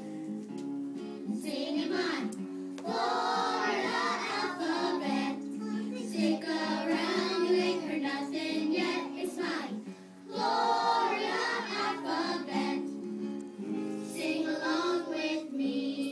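A small group of four-year-old children singing an alphabet song together over an instrumental accompaniment, with a short break in the singing about ten seconds in.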